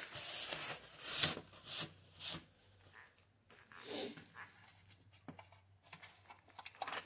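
Brisk rubbing swipes of crud being wiped off a work stand, four quick strokes in the first two and a half seconds, then fainter rustling and a few light knocks.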